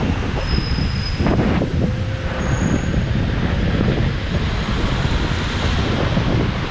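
Wind rumbling on the microphone and road noise from a Lime electric rental scooter riding along city streets, a steady, loud, gusty noise.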